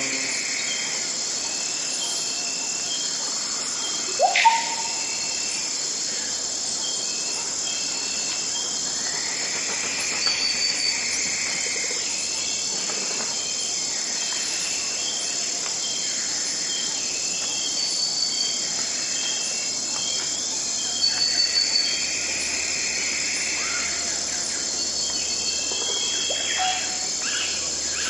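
Tropical rainforest dawn ambience: a dense, steady chorus of insects shrilling high, with swelling waves of lower insect song every several seconds. Birds call over it with short high notes, and one loud, sharply rising call about four seconds in.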